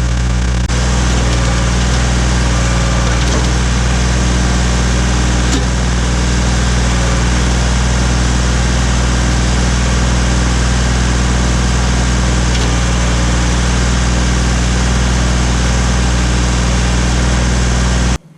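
Ford 1710 tractor's three-cylinder diesel engine running at a steady speed while the backhoe's hydraulics dig. It cuts off suddenly near the end.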